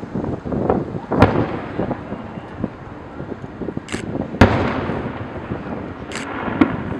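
Fireworks bursting: sharp bangs about a second in and about four seconds in, the second the loudest, and a smaller one near the end, over rolling booms and echoes. Short high hisses come around four and six seconds in.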